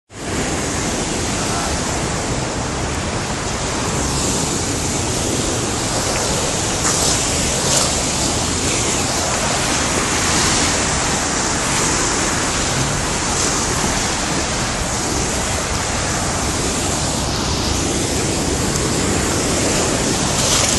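Heavy rain pouring down in a steady, dense hiss, with faint sharper patters here and there.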